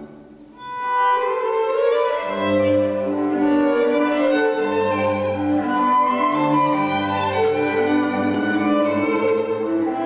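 Classical string music: a violin melody in long held notes over a low cello and bass line, starting up about a second in after a brief lull.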